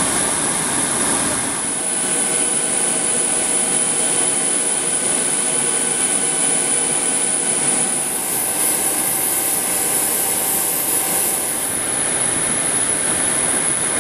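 Jet engines of a Boeing 737-800 running: a steady, even noise with a few faint steady whining tones over it.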